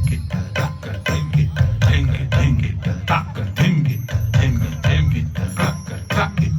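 Light-show soundtrack music: rapid percussion strikes, several a second, over a low steady drone.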